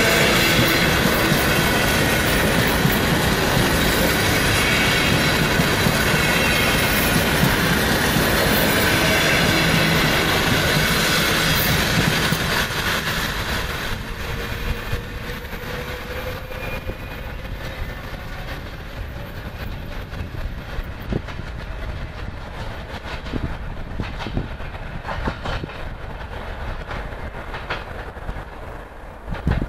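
ЭП2Д electric multiple unit running past close by, a loud rush of wheel and rail noise. About 13 seconds in it drops sharply as the train draws away, leaving a quieter running sound with scattered clicks from wheels on the rails.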